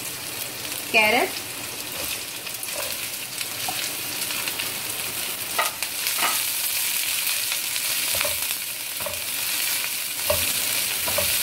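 Sliced onion, carrot, cabbage and capsicum sizzling steadily in hot oil in a nonstick pan as they are lightly sautéed. A spatula scrapes and knocks against the pan every second or so during the second half.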